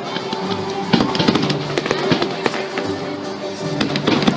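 A fireworks display: many rapid cracks and bangs in quick succession over music with sustained notes.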